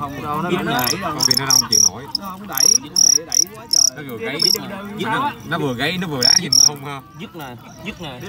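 Fighting crickets chirping in short, high-pitched bursts, repeated in irregular runs.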